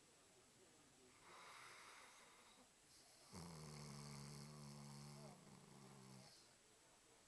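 A sleeping dog snoring faintly: a soft breath about a second in, then a low buzzing snore lasting about two seconds that trails off into a breathy rasp.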